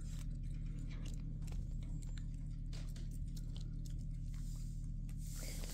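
Cat licking a lickable purée treat from a squeeze tube: faint, quick wet clicks and smacks of its tongue, over a steady low room hum.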